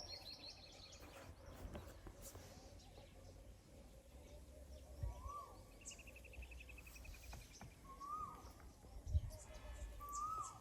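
Birds calling faintly: a fast, slightly falling trill twice, and a short whistle that rises and falls, repeated every two to three seconds, over a low rumble.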